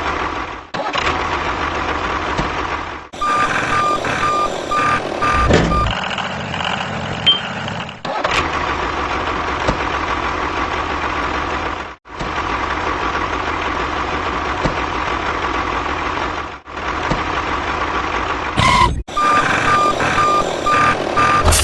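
Truck engine running steadily, with a reversing alarm beeping about two to three times a second in two spells, one a few seconds in and one near the end. The engine sound breaks off abruptly several times.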